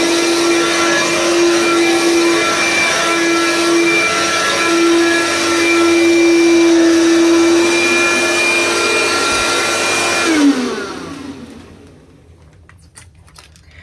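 Dirt Devil Room Mate vacuum cleaner running steadily with a hum and a high whine. About ten seconds in it is switched off and the motor winds down, its pitch falling away. A few light clicks follow.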